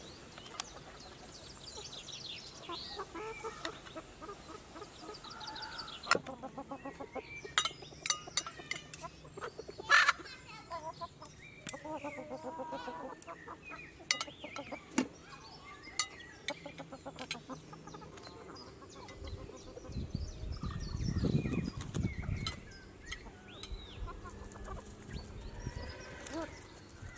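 Chickens clucking, with scattered sharp clicks and knocks and a low rumble lasting about two seconds near the end.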